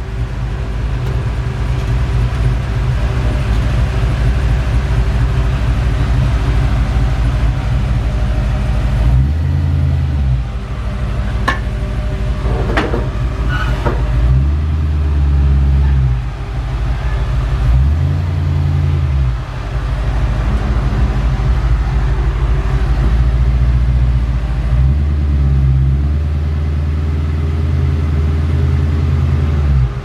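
A vehicle engine rumbling low and steady, its level stepping up and down now and then, with a few sharp clanks about eleven to fourteen seconds in.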